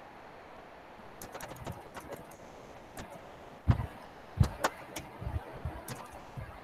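Computer keyboard typing: irregular key clicks starting about a second in, with a few louder strokes from about the middle.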